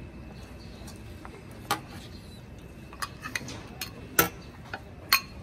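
Long metal ladle clinking against the rim of a large metal cooking pot and a ceramic bowl while curry broth is ladled out: a run of sharp, briefly ringing clinks at irregular intervals, the loudest a little past the middle.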